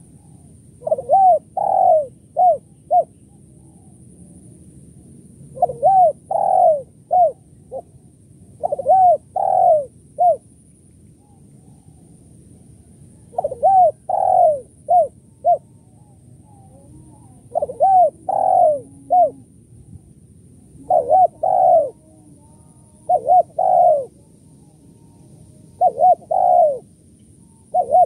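Spotted dove cooing: about nine phrases of three to five short coos each, spaced a few seconds apart.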